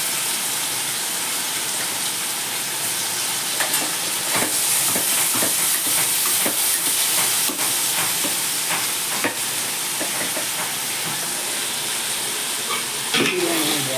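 Sliced onions with cinnamon and cloves frying in hot oil in a pan, sizzling steadily, with scattered clicks of a spoon stirring against the pan.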